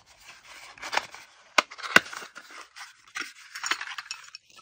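Hands opening a small cardboard box and handling clear plastic clips: scraping and rustling with a few sharp clicks, the two loudest close together about a second and a half in.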